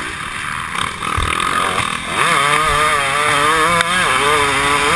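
Dirt bike engine heard from the rider's helmet camera. It runs lower and quieter at first, then revs up about two seconds in and holds high under throttle with a wavering pitch.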